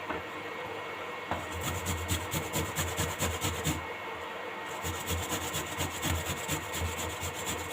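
Rhythmic rasping strokes of fresh ginger root being grated, starting about a second in.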